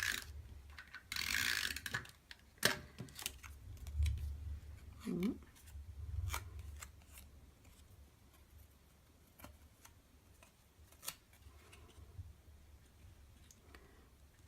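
Stampin' Up Snail adhesive tape runner drawn across card stock in short zipping strokes, at the start and again about a second in. Scattered clicks and taps of paper and card being handled follow.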